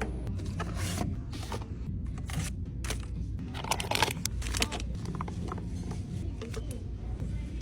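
Scattered light clicks, taps and small knocks of household items being handled and set down, a little busier about four seconds in, over a steady low hum.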